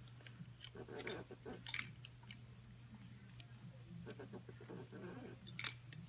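Hand pop rivet tool being squeezed on a seat-belt buckle: a run of faint clicks and crunches, with one sharp click near the end.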